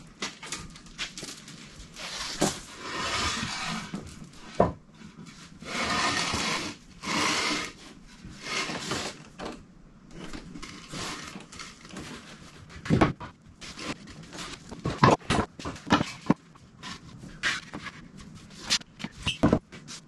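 Wooden blocks being handled and stacked on a concrete floor. Stretches of scraping and rattling come first, then a run of sharp wood knocks as the blocks are set down one on another.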